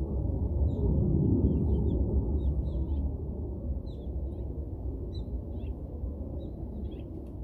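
Small birds chirping in many short, high, quickly falling calls over a steady low rumble.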